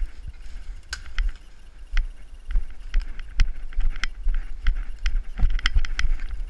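Footsteps crunching and crackling through dry leaf litter, about two a second, with heavy low thumps and rumble from the body-carried camera jolting with each step.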